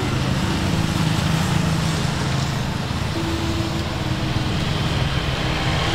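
Motor vehicle engine running steadily, with street traffic noise; the sound cuts off suddenly near the end.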